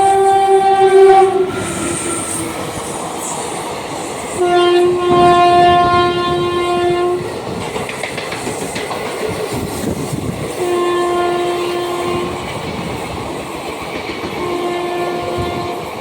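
Indian Railways express train running through at speed, its horn sounding four blasts, the second the longest, over the steady rush and clatter of the passing train.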